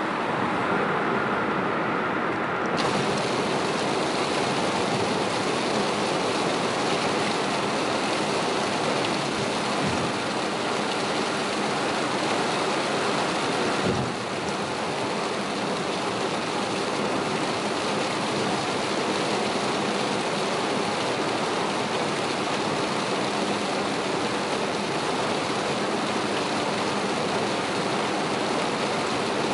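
Heavy rain on a car and tyres hissing on a flooded expressway at speed, heard from inside the cabin as a steady wash of noise. A higher hiss comes in suddenly about three seconds in as the car leaves a tunnel into the downpour.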